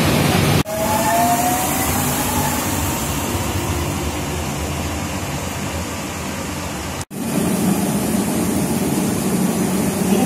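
Electric commuter trains at station platforms: a steady rumble and rush of moving trains, broken twice by brief, sudden dropouts. A faint rising whine sounds about a second in.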